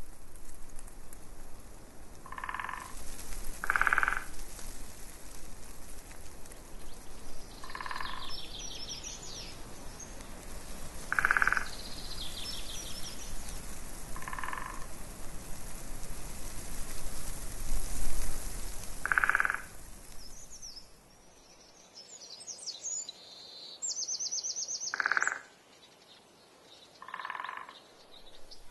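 Countryside ambience: short croaking calls repeating every few seconds, a few rapid high bird trills, and wind gusting on the microphone that dies down about three-quarters of the way through.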